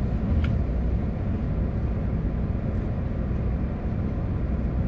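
Steady low rumble of a car idling in park, heard from inside the cabin, with a faint click about half a second in.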